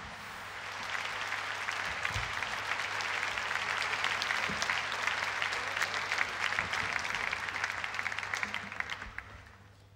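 Audience applauding: many hands clapping, swelling over the first second and dying away near the end.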